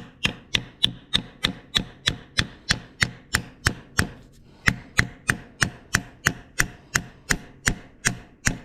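Hammer blows struck steadily, about three a second, on a screwdriver driven down between a cylinder sleeve and the engine block of a Ford 8N tractor to work the sleeve loose.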